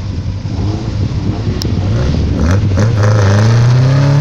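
Sports car engine running at the start line, its revs climbing steadily from about two and a half seconds in as it is brought up for a launch.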